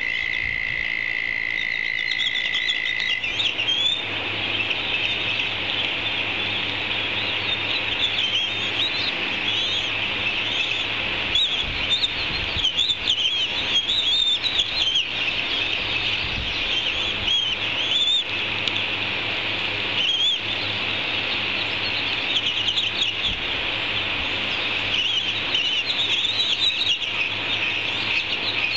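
Rapid high-pitched bird chirping, many short rising-and-falling calls overlapping without a break. A steady high trill runs through the first three seconds.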